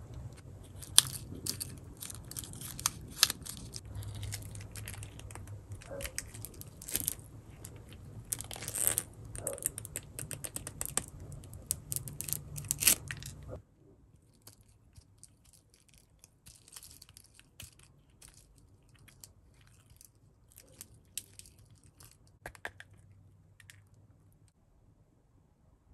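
Hands handling plastic toy capsule pieces and packaging: a dense run of crackling, clicking and rustling over a steady low hum, which stops abruptly about halfway. After that there are only faint, scattered clicks.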